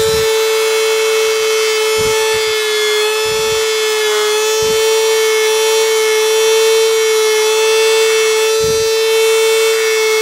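Handheld rotary tool spinning a sanding drum at a steady high whine while it grinds away part of a folding knife's handle. The pitch dips briefly about four seconds in, and a few low bumps come through.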